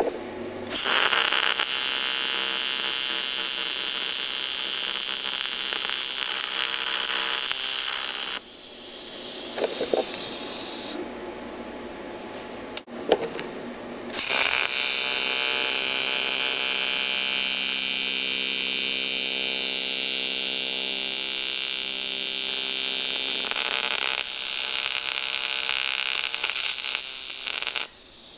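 AC TIG welding arc from a Longevity Tigweld 200SX buzzing steadily while tack-welding aluminum: one burn of about seven seconds, then, after a pause with a few clicks, a second of about thirteen seconds that stops just before the end.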